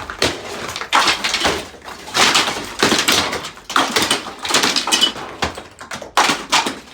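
Demolition debris being torn down by hand: a patch of interior wall or ceiling material pulled loose, cracking, scraping and falling in a series of irregular crashes.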